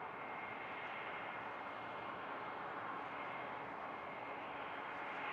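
Diesel locomotives of a BNSF freight train running past at a distance: a steady roar that slowly grows louder.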